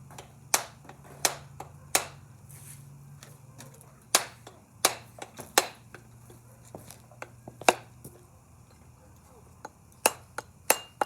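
Hatchet head being driven onto a wooden stick handle with sharp knocking blows, in groups of two or three. Near the end the blows draw a short metallic ring from the head.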